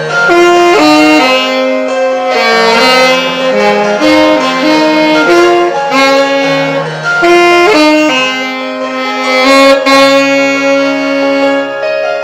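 Alto saxophone playing a slow melody over a backing accompaniment, the notes moving step by step, then one long held note near the end.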